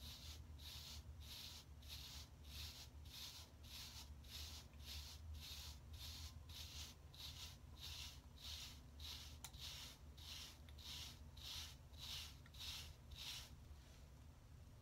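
Bristle wave brush stroking through short hair to train 360 waves: a faint, rhythmic swish at about two strokes a second that stops near the end.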